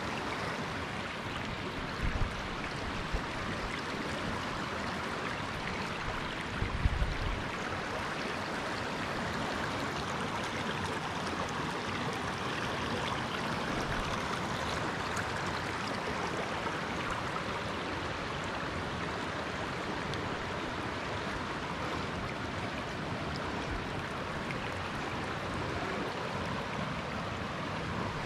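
Shallow river rapids rushing steadily over and between rocks, with a few low thumps about two and seven seconds in.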